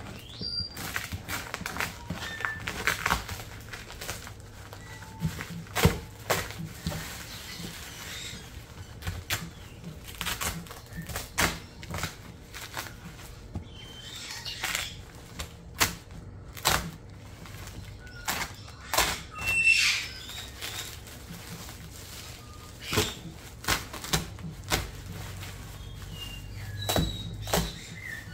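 Cardboard shipping box and its plastic wrapping being handled and opened: irregular rustling, scraping and short knocks.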